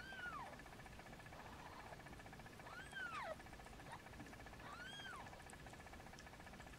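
Newborn kitten mewing faintly three times, short thin cries that rise and fall in pitch: one at the start, one about three seconds in and one about five seconds in.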